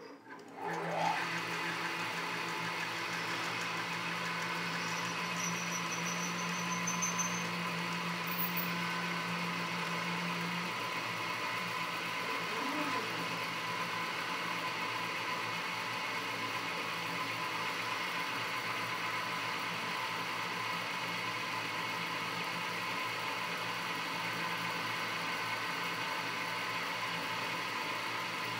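Home-built mini CNC lathe running a test program with no tool or workpiece: its spindle motor, a water-pump motor, starts about a second in and spins the chuck with a steady whirring hum, while stepper motors drive the carriage along its lead screws. A low steady tone in the mix stops about ten seconds in.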